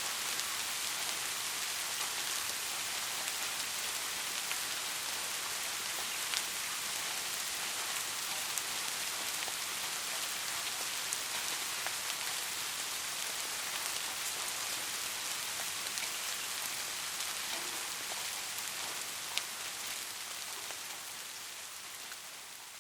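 Soft rain falling steadily, an even hiss with scattered sharper drop ticks, starting to fade out near the end.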